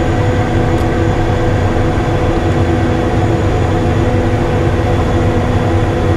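Cessna Citation I cockpit noise on short final: the steady rumble of airflow and the twin Pratt & Whitney JT15D turbofans at approach power, with a few steady engine hums running through it.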